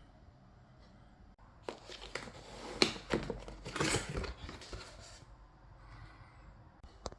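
Rustling, crinkling handling noise with several sharp clicks, starting about two seconds in and dying away after about three seconds, then a single short click near the end.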